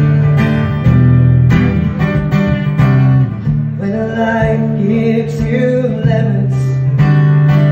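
Acoustic guitar strummed in steady chords, with a man's voice singing a wordless line over it from about three and a half seconds in until about six seconds in.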